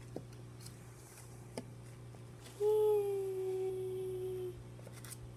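A person humming one held, slightly falling note for about two seconds, a made-up call for the toy creature; two faint ticks come before it.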